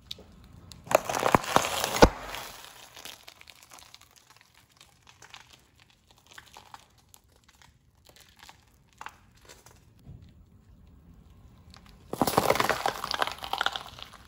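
A car tyre rolling over a small box of frosted cornflakes: a loud burst of cardboard and cereal crunching and crackling about a second in, ending in a sharp crack, then scattered faint crackles. Near the end comes another burst of crunching as the tyre crushes a yellow bell pepper.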